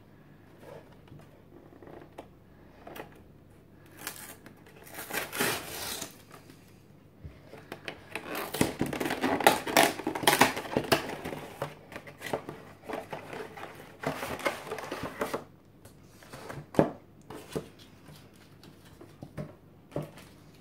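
A cardboard box being opened by hand: scraping, rustling and tearing of the cardboard in several bursts, then a few sharp clicks near the end as the clear plastic tray of cards is handled.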